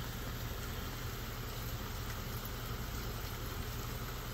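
Heavy rain falling steadily on a paved parking lot, an even hiss with no let-up, over a steady low hum.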